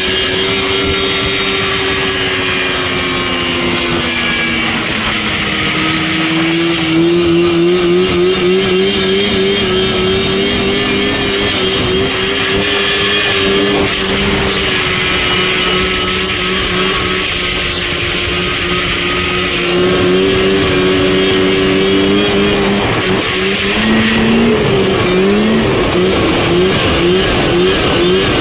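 Rotax 503 two-stroke twin engine of a Lynx snowmobile running hard at high revs. Its pitch dips about five seconds in and wavers up and down near the end, and a thin high whine joins in midway.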